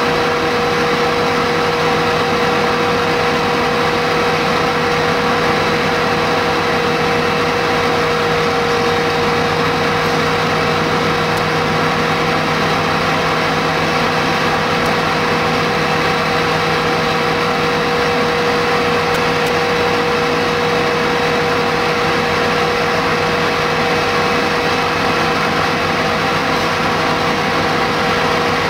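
Fire appliance engines running steadily at a fire scene, a constant engine drone with a steady whine over it.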